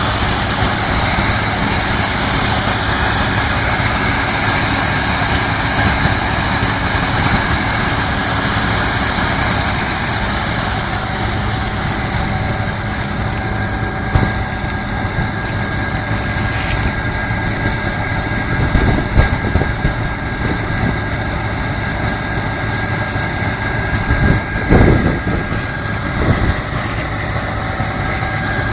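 Heavy farm harvest machinery running steadily, with an engine drone and a thin constant whine. Twice, about two-thirds of the way in and again near the end, there is a heavier low rumble.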